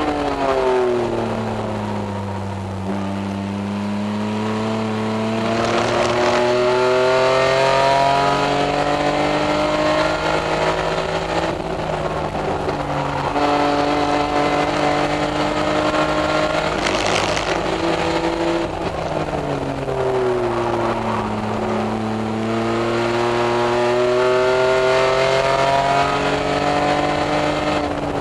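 Race-prepared BMW Z3 Coupe straight-six engine heard from inside the cockpit at racing speed. Its pitch drops sharply a moment in as the car slows and shifts down, climbs steadily through a long pull with a couple of brief dips, falls again about twenty seconds in, then climbs once more.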